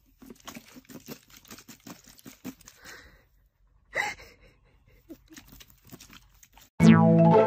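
Empty plastic water bottle crinkling and crackling as a cat grabs and bites it: a run of quick crackles for about three seconds. A short cat cry about four seconds in, then a few scattered crinkles.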